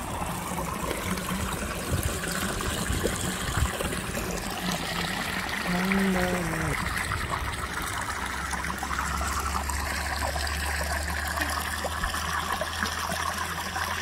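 Shallow creek water trickling and splashing over rocks and small cascades, a steady running-water sound. A short pitched call is heard about halfway through, and a low rumble joins in over the second half.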